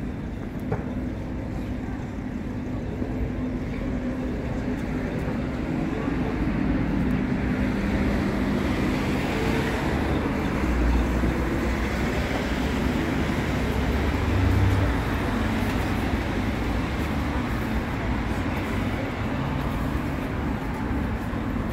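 A tram standing at the stop with its doors open, giving a steady low hum over the rumble of city traffic. The sound grows a little louder in the middle.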